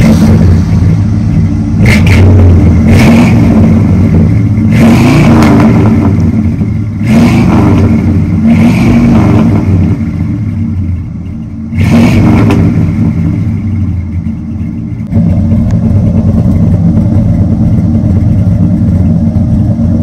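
1977 Ford Thunderbird V8 running through a new true dual exhaust with Flowmaster mufflers and chrome tips: a deep idle rumble with about six short throttle blips in the first twelve seconds, then a steady idle. The freshly fitted mufflers give it a fuller, louder tone.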